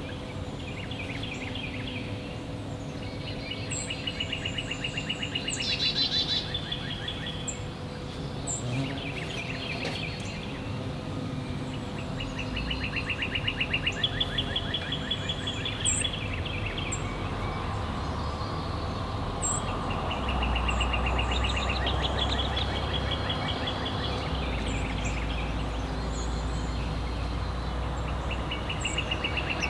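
Backyard songbirds singing outdoors: a series of quick, rapid-note trills a second or two long, repeated every few seconds, with scattered short high chips between them. A low rumble comes in about two-thirds of the way through.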